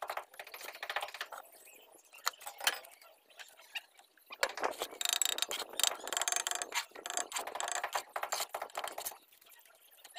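Steel trowel scraping mortar and knocking on hollow clay bricks: a run of rapid scrapes and clicks, quieter for a couple of seconds early on and densest through the middle.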